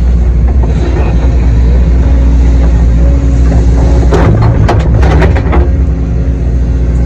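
Cat 312E excavator's diesel engine running steadily under work, with a burst of sharp knocks and scraping about four seconds in that lasts about a second and a half.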